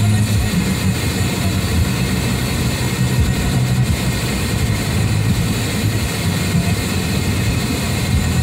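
Steady road and engine noise inside the cabin of a car driving at speed: a constant low hum under an even hiss of tyres and wind.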